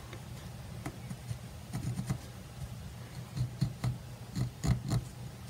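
Fine-point pencil scratching lightly over linen fabric in short, irregular strokes as a design is traced, over a steady low hum.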